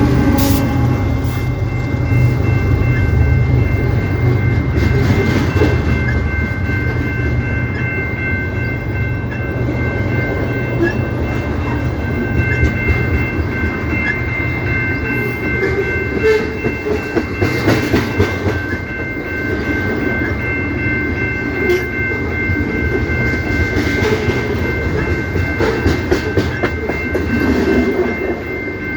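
CP Rail train rolling past with a steady heavy rumble and wheels clacking over rail joints, louder in clusters later on. A steady high-pitched whine runs throughout. A horn blast cuts off about a second in.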